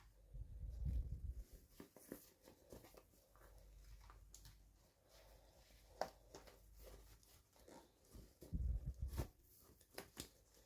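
Faint handling of toy packaging: scattered small clicks and crinkles with a few short tearing sounds, and dull low bumps near the start and again near the end as the box is moved on the table.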